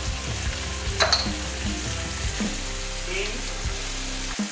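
Shrimp and vegetables sizzling in a hot wok on a gas stove as they are stir-fried. A sharp clink comes about a second in.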